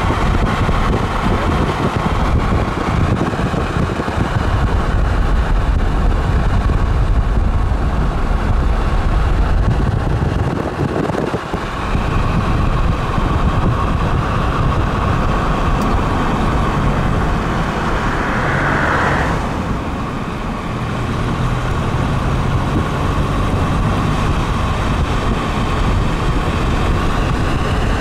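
Car driving along a road: a steady rumble of tyres and engine, dipping briefly twice.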